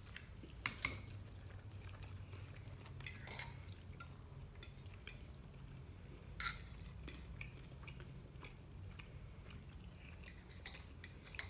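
Quiet eating: a metal fork and chopsticks clicking now and then against bowls and plates, with soft chewing, over a low steady hum.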